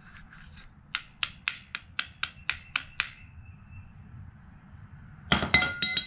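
Claw hammer striking a small plastic Bluetooth speaker in a quick run of about nine light blows, roughly four a second. Near the end comes a short clatter of metallic clinks with a ringing tone.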